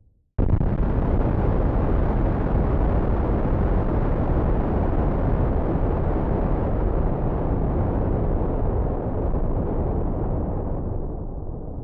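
Explosion sound effect: a sudden blast about half a second in, then a long, heavy rumble that holds for several seconds and slowly fades and dulls near the end.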